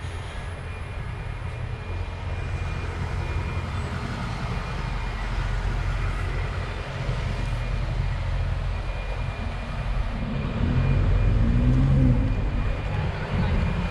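Street traffic: a steady low rumble of passing cars and buses, growing louder about ten seconds in as a vehicle drives past close by.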